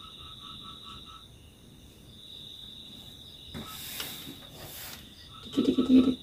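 Night insects, crickets among them, chirring steadily, with a second insect or frog call pulsing about five times a second in the first second. A rustle comes about halfway through, and a short, loud pitched vocal sound comes near the end.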